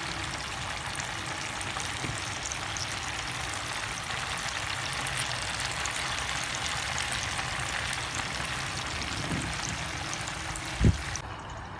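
Floured pieces of soso fish frying in hot oil in a pan: a steady sizzle with fine crackling. Near the end there is a brief low thump, and the sizzle drops away.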